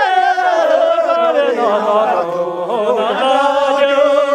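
A group of voices singing a traditional Ngari Tibetan circle-dance song together, drawing out long held notes that dip in pitch midway and settle on a sustained note near the end.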